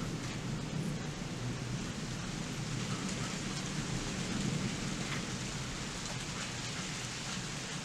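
Steady rain falling during a thunderstorm, with a few individual drops ticking close by and a low rumble underneath.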